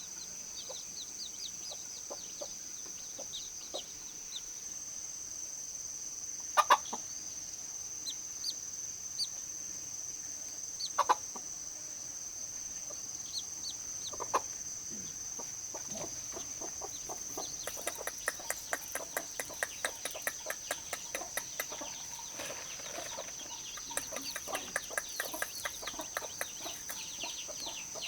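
Chickens clucking with small chirping calls over a steady high insect drone. A few sharp knocks sound in the first half, and a run of rapid clicks fills much of the second half.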